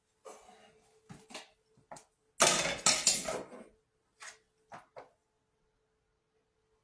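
Kitchen handling sounds: a few short knocks and clinks, with a louder clatter about two and a half seconds in that lasts about a second, over a faint steady hum.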